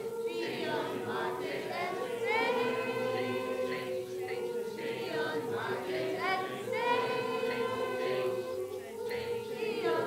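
A large group of untrained voices performing an experimental choral noise piece: one section holds a steady hummed or sung note while many other voices swoop up in pitch again and again, overlapping.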